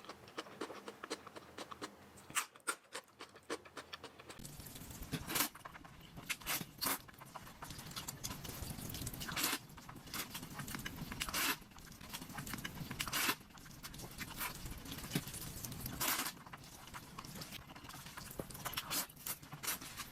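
Close-miked noodle eating: wet chewing and mouth clicks. From about four seconds in there is a louder steady background, with short loud noises every second or two.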